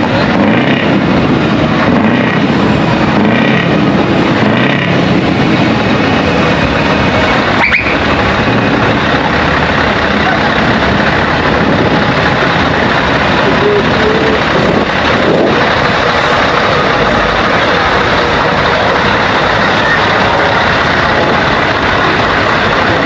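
Heavy vehicle engines running: a steady, loud noise with a brief rising chirp about eight seconds in.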